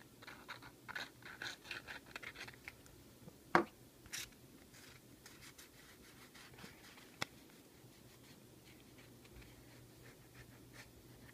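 Light scratching and rubbing from close handling of a small 3D-printed part while glue is worked onto it, with a single knock about three and a half seconds in and a few small clicks after. A faint steady hum of running fans sits underneath.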